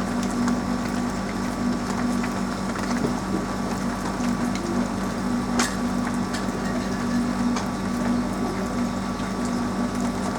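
Rain on a roof: an even wash of noise with scattered sharp drip ticks, over a steady low hum.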